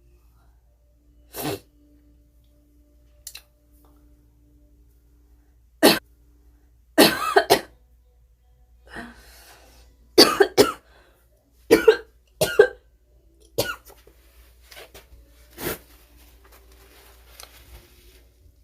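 A young woman coughing: a dozen or so short coughs at irregular intervals, several in quick runs of two or three. It is a phlegmy cough, which she puts down to heavy phlegm.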